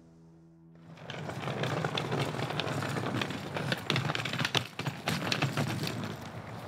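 Held musical notes that stop about a second in, followed by a loud, dense clattering noise with rapid irregular clicks.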